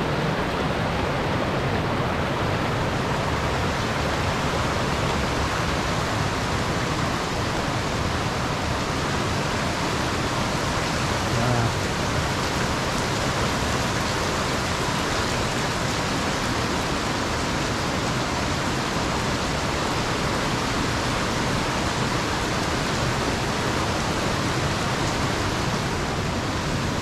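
Steady, loud rush of rainforest creek water pouring over cascades, an even hiss with no break.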